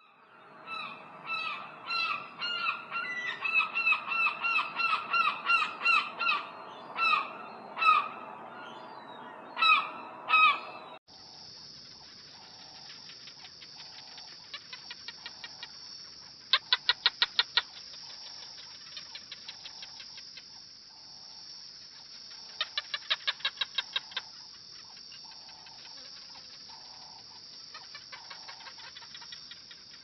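A gull calling in a rapid series of repeated sharp calls, about two or three a second, which stop abruptly about eleven seconds in. A steady high hiss follows, with two short bursts of fast clicking.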